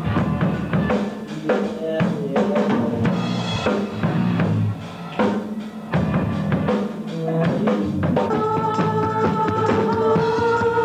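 Rock band playing live in a hall: drum kit with kick and snare hits, and an electric guitar. About eight seconds in, a long held note comes in over the drums.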